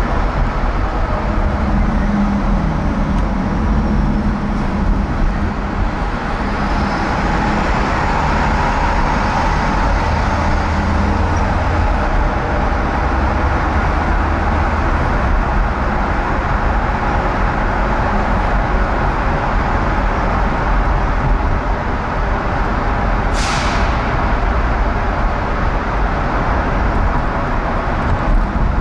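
Steady tyre and engine noise of a car driving on a multi-lane road, with other traffic around it. A brief sharp hiss sounds once, near the end.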